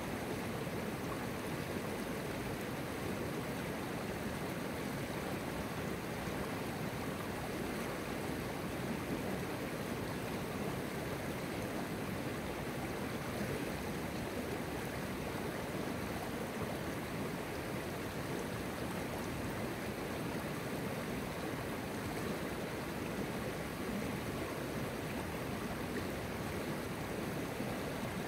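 River water flowing steadily: a continuous, even rush of a stream running over its stony bed.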